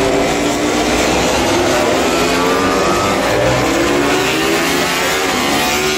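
Racing motorcycle engines at speed on the track, several overlapping, their pitch rising and falling as the bikes accelerate and pass.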